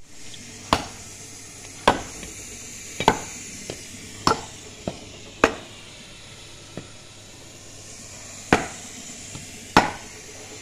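A cow being milked by hand: squirts of milk striking the pail as sharp hits about once a second, with a few fainter ones between. The hits pause for a few seconds in the middle.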